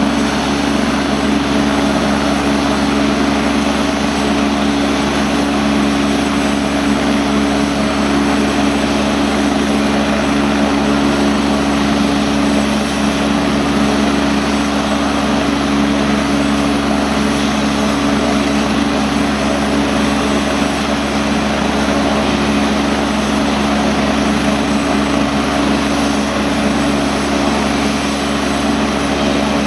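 AgustaWestland A109 helicopter running on the ground, its twin turboshaft engines and rotor giving a loud, steady hum that does not change.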